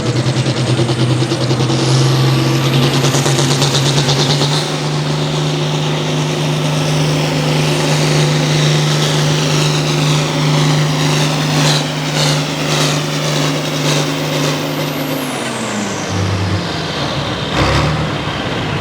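Altered farm tractor's engine at full power pulling the weight sled down the track, its pitch held steady for about fifteen seconds and then falling as it winds down at the end of the run. A single sharp thump comes shortly after.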